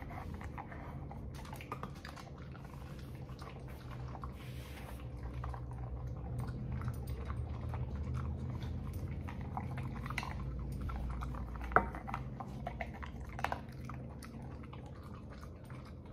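Dog eating peanuts from a stainless steel bowl: steady chewing with many small clicks from teeth and tongue against the bowl, and two sharper clicks late on.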